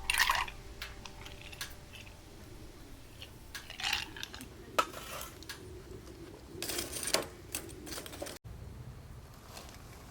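Cookware and utensils being handled: scattered light clinks and clatters, a few louder about a second in, near the middle and around seven seconds in.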